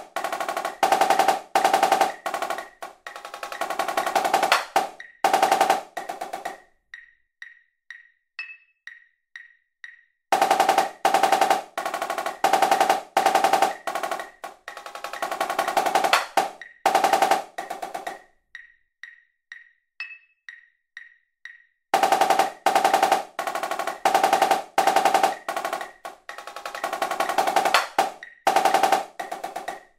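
Sampled marching snare drum (Virtual Drumline MIDI playback) playing fast accented sixteenth-note and triplet phrases at 124 beats per minute over a metronome click. Twice the snare drops out for a few seconds, leaving the click ticking alone about twice a second, with a higher accent click on the downbeat.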